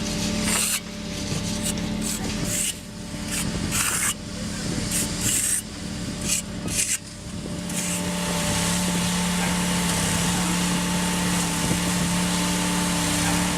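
Heavy construction machine's engine running with a steady hum. Over the first half, hissing scraping noise comes and goes in short stretches with sudden changes, then settles into an even, continuous noise.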